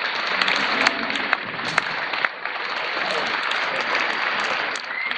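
Audience applauding steadily, with sharp individual claps standing out, tapering slightly near the end.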